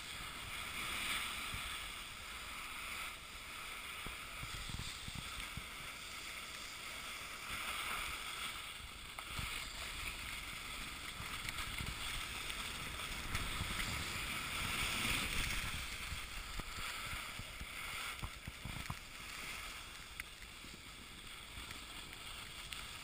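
Steady scraping hiss of sliding downhill over packed, tracked snow, swelling and easing through the run, with wind rumbling on the microphone.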